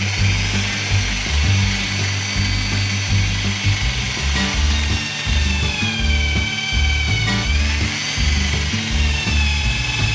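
Electric drill boring a bolt hole through a plywood gusset and timber boat frame, its motor whine sagging in pitch as the bit loads up, rising again about seven and a half seconds in, then sagging once more. Background music with a bass line plays underneath.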